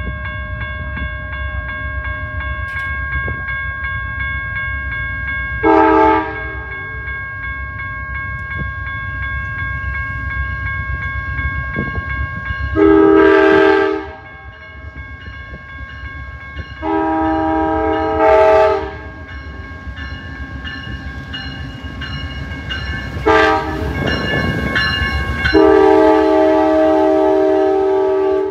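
Air horn of an Amtrak GE P42DC Genesis diesel locomotive: one short blast, then the grade-crossing signal of two long blasts, a short one and a final long one, as the train passes close by. The diesel engine's steady rumble runs underneath.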